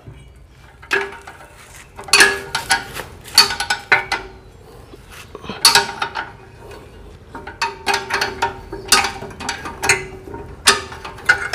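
Irregular metallic clinks and clicks of a ring spanner working the clamp nuts on a rice-wheat reaper's cutter bar as they are tightened, in short clusters of sharp strokes.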